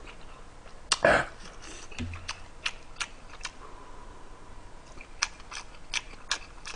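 Close-miked eating sounds of a man eating stew and rice with a spoon: chewing and lip-smacking heard as short sharp clicks at irregular intervals, with light spoon touches. The loudest click comes about a second in.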